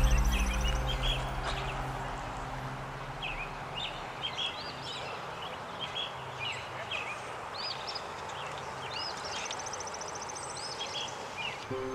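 Several wild birds chirping and calling, with many short rising-and-falling notes and a fast high trill now and then, over a steady outdoor hiss. Background music fades out over the first second or two and comes back right at the end.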